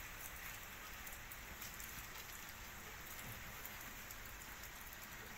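Light rain falling: a steady, faint hiss with scattered drop ticks.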